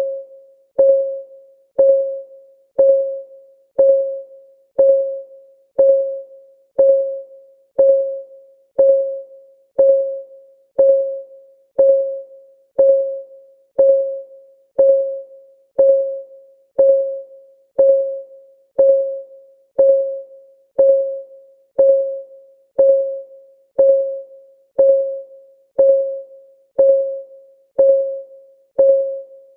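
Countdown timer's clock-tick sound, one tick a second: each tick a sharp click with a short mid-pitched tone that dies away before the next.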